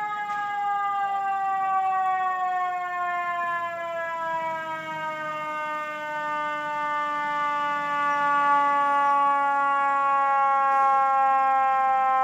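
Fire engine siren sounding one long tone that falls slowly in pitch, growing louder toward the end as the engine arrives.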